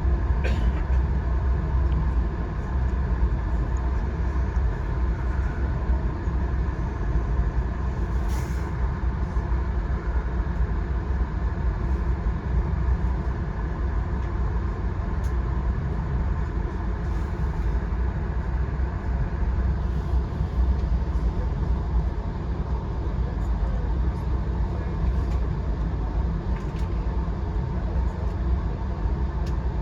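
Passenger train rolling along the track, heard from on board: a steady low rumble with a constant hum, and a few faint clicks and knocks.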